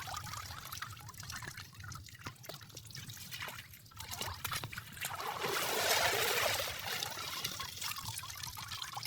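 Water trickling and sloshing with small drips and splashes, as the water of a flooded field is stirred; a louder rush of water about six seconds in.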